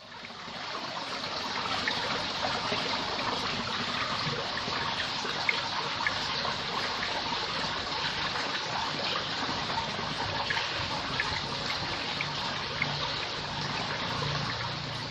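Running water: a steady, even noise that fades in at the start.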